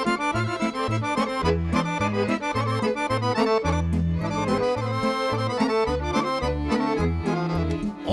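Instrumental introduction of a Serbian folk song: a piano accordion plays a quick run of melody notes over a steady bass line and drum beat from the band.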